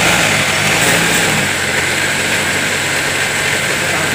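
Typical industrial lockstitch sewing machine running steadily at speed with its presser foot raised, turning the bobbin winder to fill a bobbin. This is a test run to check how noisy the machine is.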